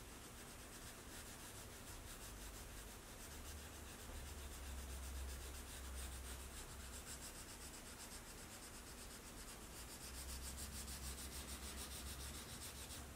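Coloured pencil shading on paper in rapid back-and-forth strokes, a faint dry scratching.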